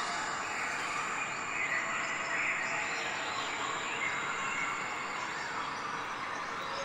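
Steady outdoor background noise, an even hiss, with no clear animal call standing out.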